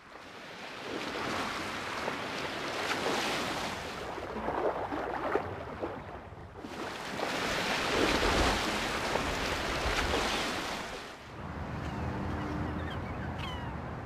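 Sea waves and wind on the microphone, rising and falling in long surges of a few seconds each. A faint steady hum comes in near the end.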